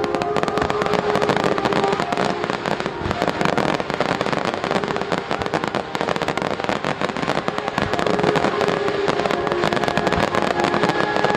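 Fireworks barrage: many shells and ground-level bursts going off in rapid, overlapping succession, a continuous dense crackle of bangs and pops with no break.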